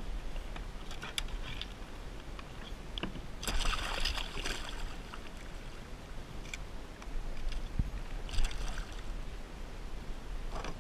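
Water splashing at the side of a kayak as a hooked striped bass is landed, in two louder bursts about four seconds apart, with scattered small clicks of tackle.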